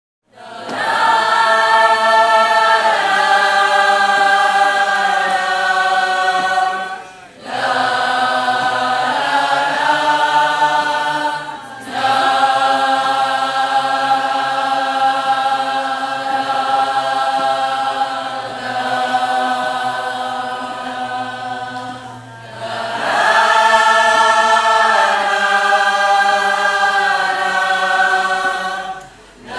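A choir singing long, held chords in harmony, in four phrases with brief pauses between them.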